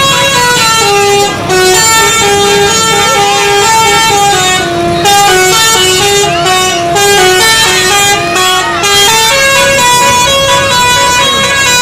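Bus 'telolet' Basuri multi-tone horn playing a loud melody of held notes that step up and down, with voices over it.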